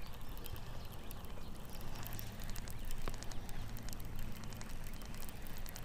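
Fishing reel being cranked on a steady retrieve: soft, scattered light ticks over quiet open-water ambience.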